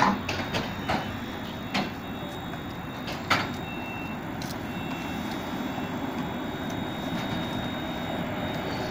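Pesa 19WE electric multiple unit standing at a platform, its onboard equipment giving a steady hum, with a handful of sharp knocks in the first few seconds, the loudest at the very start and another about three seconds in.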